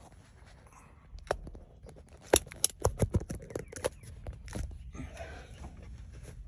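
Clicks, knocks and light rattles from an old car rolling with its engine off, being pushed and coasting down the street, over a low rumble; a quick run of sharper clicks comes between about two and four seconds in.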